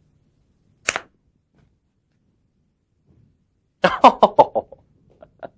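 A short breathy puff about a second in, then a person's quick laugh, a run of about six rapid 'ha' pulses lasting under a second.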